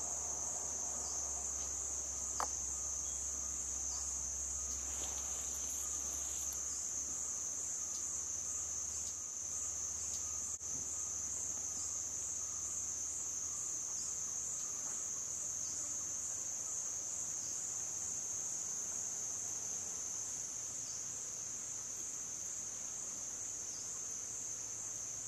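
Forest insect chorus: a steady, high-pitched shrill drone.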